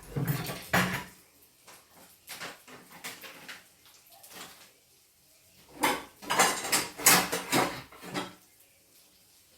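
Kitchen utensils and cookware clattering: a burst of knocks and scrapes in the first second, scattered lighter taps, then a longer run of clatter about six to eight seconds in.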